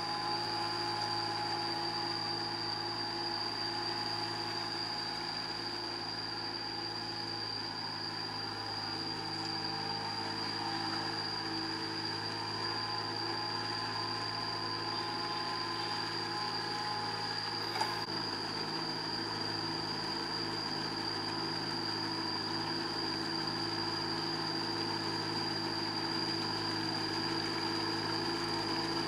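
Small tractor engine running steadily at constant speed while the tractor drags a leveling board through a flooded rice paddy on steel cage wheels. A steady high-pitched whine sits over it, and there is a single sharp click about 18 seconds in.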